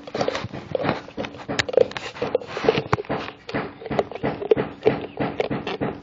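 A puppy licking and smacking at peanut butter: a quick, irregular run of wet licks and mouth smacks, several a second.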